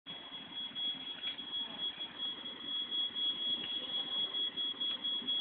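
Smoke alarm sounding one continuous high-pitched tone, triggered by smoke from a burning dryer motor, over a rough background noise.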